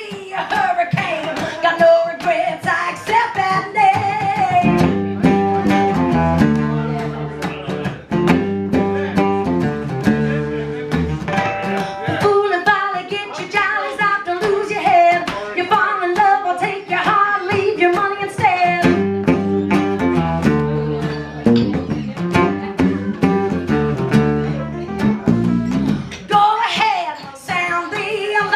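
Acoustic band playing live: guitar with singing, and a low bass line that comes in about five seconds in and drops out near the end.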